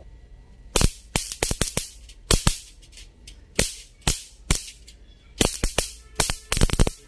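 Electric mosquito racket's high-voltage grid sparking with irregular sharp snaps, some in quick clusters: the repaired circuit is working again.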